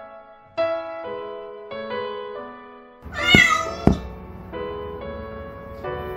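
A cat meows once, about three seconds in, a call lasting under a second with two sharp clicks during it. Gentle piano music plays throughout.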